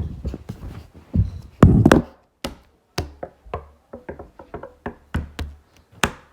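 A run of sharp taps and knocks at uneven spacing, with one louder, longer thud about one and a half seconds in.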